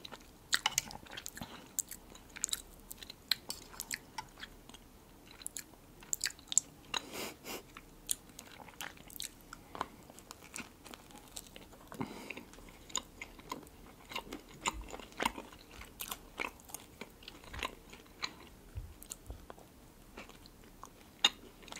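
Close-miked eating: biting into and chewing an open sandwich of bread topped with red caviar, a continual run of small sharp wet clicks and smacks.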